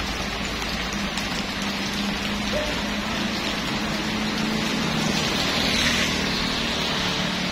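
Heavy rain falling steadily on a wet paved road, a constant hiss. A motor scooter rides past on the wet road, its engine hum and tyre hiss swelling slightly around five to six seconds in.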